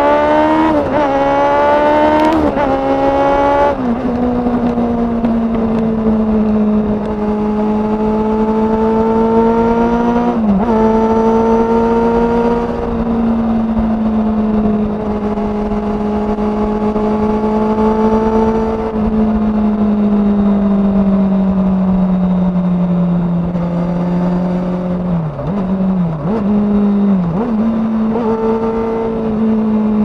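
2007 Kawasaki ZX-6R's inline-four through a Yoshimura undertail exhaust. It accelerates with three quick upshifts in the first few seconds, each cutting the revs before they climb again, then holds fairly steady revs. Near the end the revs dip briefly a few times and recover.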